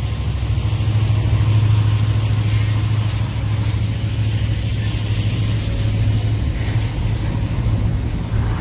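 Norfolk Southern double-stack container train rolling past, its cars' wheels on the rails making a steady low rumble.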